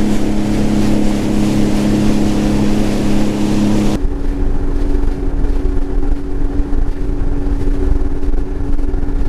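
Sea-Doo jet ski engine running at a steady cruise over a hiss. About four seconds in the sound changes abruptly to a slightly higher steady hum with much less hiss.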